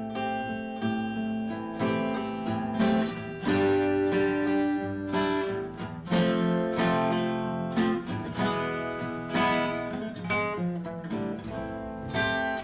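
Acoustic guitar played by hand, with strummed and picked A minor chord patterns and extra notes put on and lifted off over the chord as an embellishment.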